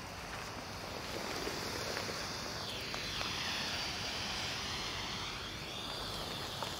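Pyroland Giga Smoke 300 white smoke flare burning with a steady hiss; midway the hiss sweeps down and back up in pitch.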